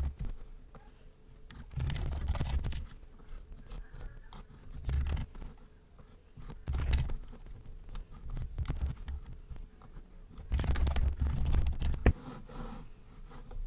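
Computer keyboard typing and clicking in short bursts, with pauses between them, while code is being edited.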